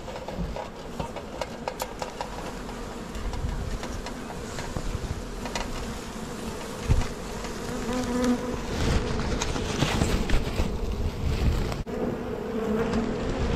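Honeybee swarm buzzing close to the microphone, a steady hum that grows stronger in the second half, as gloved hands rustle through the leaves and clustered bees on the branch. One brief knock about seven seconds in.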